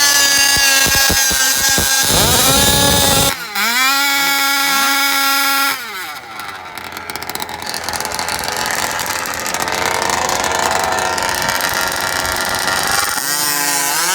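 Small two-stroke engines of gas-powered RC cars revving up to full throttle, twice in a row: each a rising whine that levels off, holds for a few seconds and then drops away. After that comes a duller, spread-out engine noise, and near the end another engine revs up.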